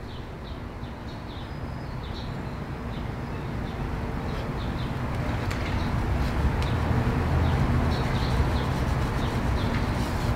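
A steady low hum, like a motor or vehicle running in the background, slowly growing louder, with faint short high chirps here and there.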